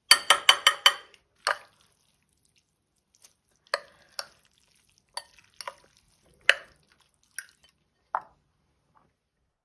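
A utensil tapping quickly against a white bowl about six times, then a fork clinking and scraping now and then against the bowl while spaghetti is stirred.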